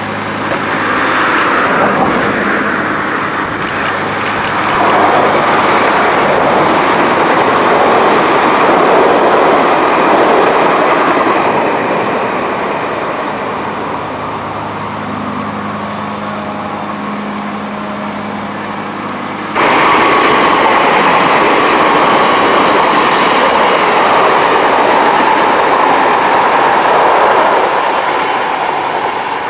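Odakyu electric trains running past on the line, with steady running noise and wheels clattering over the rail joints. About two-thirds through the sound cuts abruptly to a louder pass of another train going by close.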